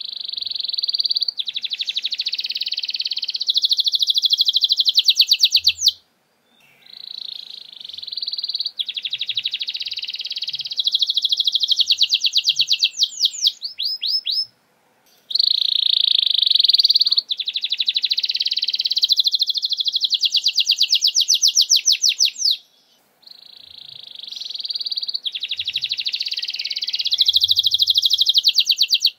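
Domestic canary singing four long song phrases in the fast-firing 'nembak' style. Each phrase ends in a rapid rattling trill, with a short pause between phrases.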